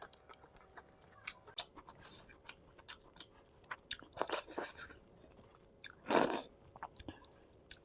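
Close-miked eating of fried fish with curry and rice: chewing and biting with many sharp wet mouth clicks and crunches, and two longer, louder bursts about four and six seconds in.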